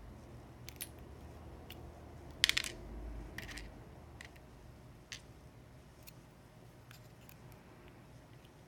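Small metal parts of a gutted mortise lock cylinder clicking and tapping as they are handled, with a quick rattle of several clicks about two and a half seconds in, as of parts dropped onto a hard surface, and a few lighter ticks after.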